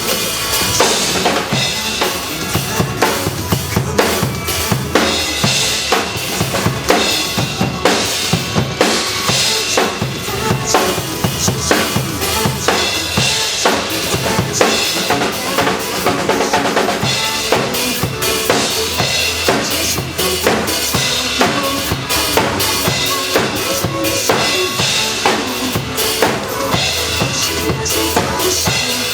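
Drum kit played live over the song's backing music: a busy, steady beat of kick and snare strokes throughout.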